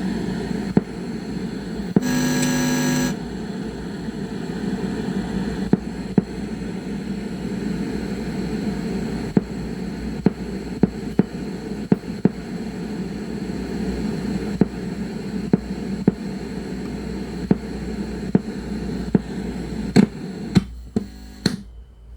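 Sony CFS-1110S cassette radio's speaker putting out a steady hum and static, crackling with scattered clicks, with a short buzzing tone about two seconds in. Near the end a few clicks come, then the hum drops away as the set goes quiet.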